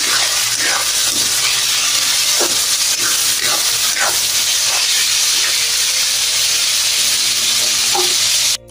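Chicken livers, garlic and onion sizzling hard in hot oil in a wok, with a spatula scraping and stirring against the pan about once a second. The sizzle cuts off suddenly just before the end.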